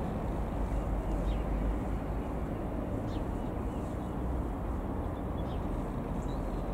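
Steady low rumble with a few short, high bird chirps over it.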